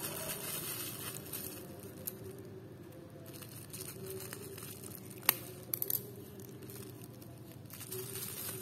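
Plastic bubble wrap crinkling and rustling as it is squeezed in the hands and cut with scissors, with one sharp snap about five seconds in and a few smaller clicks just after.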